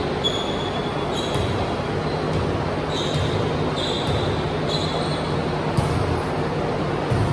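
Athletic shoes squeaking on a hardwood gym floor during a volleyball game: several short, high squeaks over the steady hum of a large hall. A single sharp smack of the volleyball being hit comes near the end.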